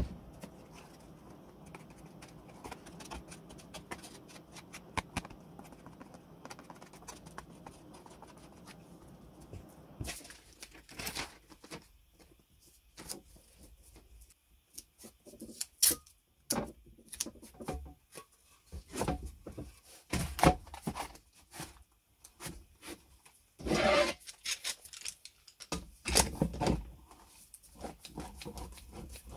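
Faint steady background noise with a few light ticks, then, from about ten seconds in, scattered irregular clicks, knocks and scrapes of things being handled.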